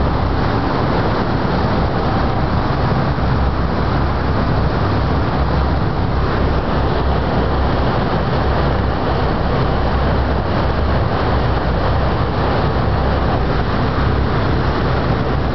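Motorboat under way: a steady, loud mix of motor noise and the rush of its churning wake.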